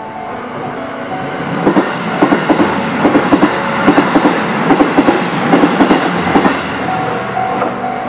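Shin-Keisei electric commuter train passing over a level crossing, its wheels clattering over the rail joints in quick pairs of beats for about five seconds from a second and a half in, then easing off.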